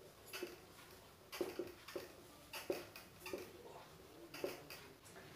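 A marker squeaking and scratching faintly across a whiteboard in short, irregular strokes as letters are written.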